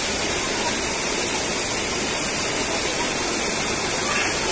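Rushing water of a rocky stream cascade pouring over and between boulders, a steady, unbroken wash.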